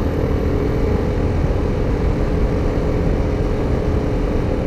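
BMW G 310 GS single-cylinder motorcycle engine running at a steady pace while riding, a held engine note over a dense low rush.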